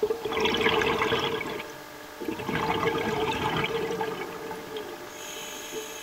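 Scuba regulator exhaust heard underwater: two exhalations, each a rush of bubbles lasting one to two seconds, with a short pause between them.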